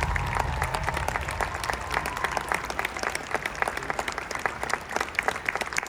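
Audience applauding, a dense patter of clapping, as the last low music fades out.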